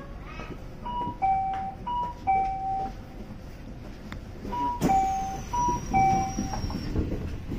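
Two-tone electronic chime of a commuter train, a higher note then a lower one, sounding twice in a row and then, after a pause of about two seconds, twice again: the kind of chime that sounds as the doors close before departure. A sharp knock comes about five seconds in, followed by a faint high whine that falls slowly in pitch.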